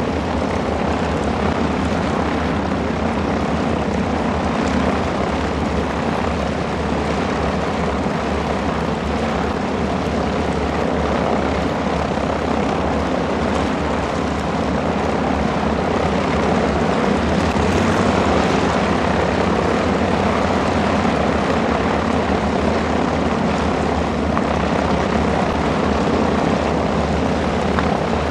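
TBM-3E Avenger's Wright R-2600 twin-row radial engine running at taxi power, a steady propeller-driven drone that grows a little louder about two-thirds of the way through.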